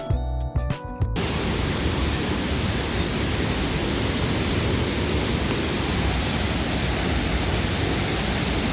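Music that stops abruptly about a second in, giving way to the steady rushing of a waterfall.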